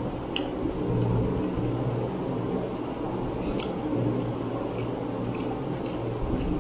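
Electric fan running with a steady hum, with a few faint soft clicks and mouth sounds from eating food by hand.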